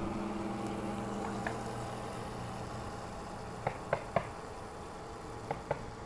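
Electric motor of a Harbor Freight Neptune RC boat running, its steady hum fading over the first second or two as the boat moves away across the water. A few short sharp clicks come later, three close together and two near the end.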